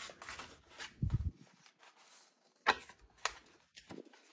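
Paper handling: a colouring book's pages and paper bookmarks rustling as a page is lifted and turned, with two sharp crisp snaps of paper about three seconds in, half a second apart.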